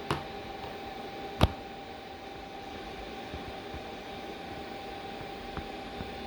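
Cooling fan of a Bluetti AC180T portable power station running steadily with a faint steady hum while it charges from the mains, just set to silent charging mode. Two sharp clicks sound near the start, the second about a second and a half in.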